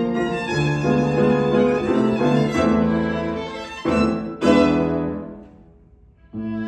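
Solo violin playing with piano accompaniment. About four seconds in come two loud accented chords that ring away into a brief pause, and a new held note begins just before the end.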